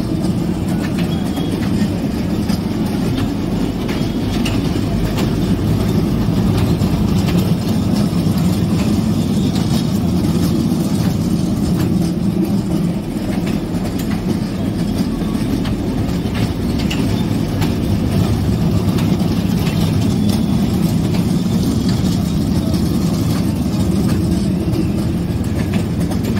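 Kiddie-ride train running around its circular steel track: a steady, even rumble with no breaks.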